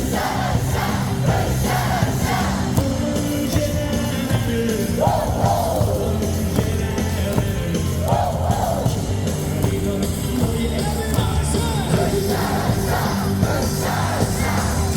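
Loud music over a ballpark's sound system with a crowd singing and shouting along, a steady beat under many voices.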